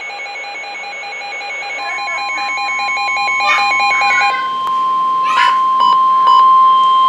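Rapid pulsing alarm beeps from a weather alert radio. About two seconds in, the steady NOAA Weather Radio 1050 Hz warning alarm tone starts and holds, growing louder, with a few brief clicks and noises over it. This tone is the signal that a warning broadcast follows.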